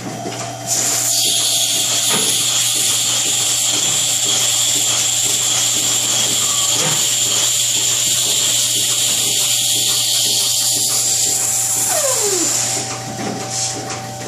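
Robotic milking machine at work under a cow: a loud steady high-pitched hiss starts suddenly about a second in and dies away about two seconds before the end, over a constant low electrical hum.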